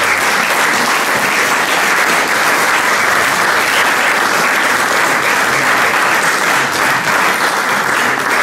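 Audience applauding steadily, dense clapping with no break.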